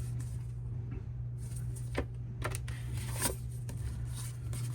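Hands handling a CD and the album's paper and card inclusions: a few light clicks and paper rustles, the sharpest about three seconds in, over a steady low hum.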